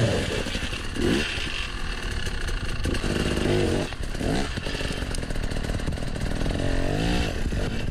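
Husqvarna two-stroke enduro motorcycle climbing over rocks, its engine revving up and dropping back again and again as the rider works the throttle through the ledges. There is the loud rasp of the engine and the scrabble of the rear tyre on rock.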